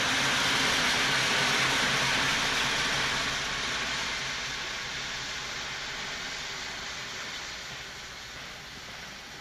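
Steam locomotive's blow-off valve venting steam: a loud, steady hiss that slowly dies away.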